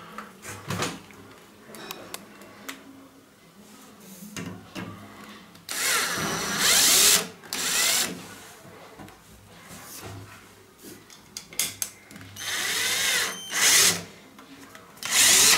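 Cordless drill-driver driving self-tapping screws to fasten a new roller to a shower door frame, in several short runs of the motor that start about six seconds in, with a few lighter clicks of handling before.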